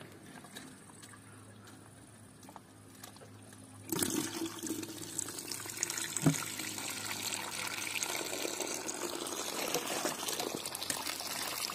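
Buttermilk draining from the unplugged drain hole of a wooden butter churn and splashing in a steady stream into a bowl, starting suddenly about four seconds in. A single short knock comes about two seconds after the flow starts.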